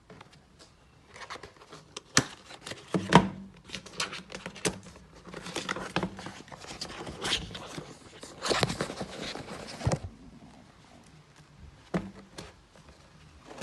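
Packaging being handled and opened: rustling with a run of sharp clicks and knocks, the loudest two near the start, then quieter clicks near the end.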